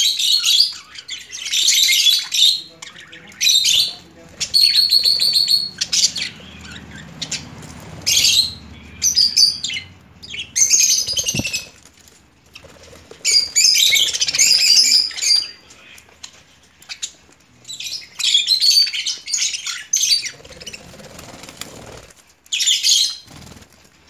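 A flock of budgerigars chattering and chirping in bursts of a second or two, with short pauses between.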